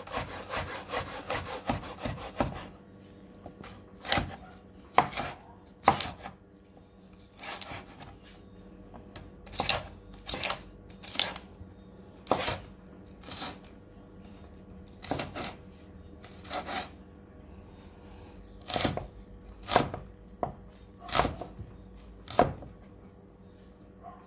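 Chef's knife cutting onion and green bell pepper on a wooden cutting board: a quick run of slicing strokes for the first couple of seconds, then separate sharp knocks of the blade hitting the board, mostly a second or so apart.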